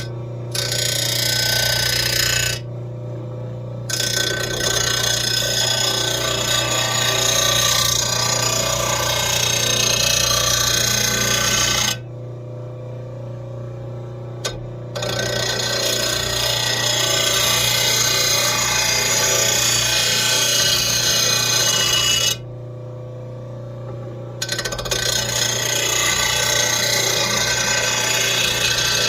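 RBG-712 mower blade sharpener's grinding stone running with a steady motor hum while a steel mower blade is ground against it in four passes. Each pass is a loud grinding, and between passes short pauses of a couple of seconds leave only the motor hum.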